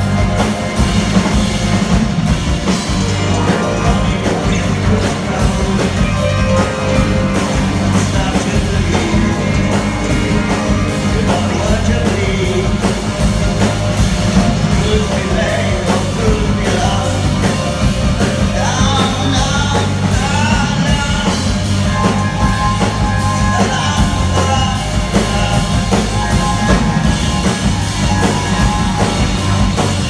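A live band playing rock music: drum kit keeping a steady beat under guitars and a singing voice, loud throughout. The music cuts in abruptly at the start.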